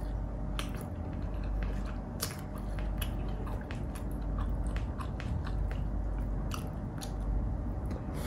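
A person chewing and biting into pork bistek tagalog and rice eaten by hand, with many short wet mouth clicks.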